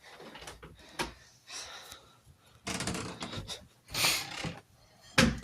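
Sniffling through a stuffy, running nose from a bad cold, with short hissy intakes of breath, amid light rustling and a click. A louder thump comes just before the end.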